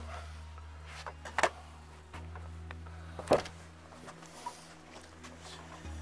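Handling noise: a few sharp knocks and lighter clicks, the loudest two about a second and a half in and just over three seconds in, over a low steady hum.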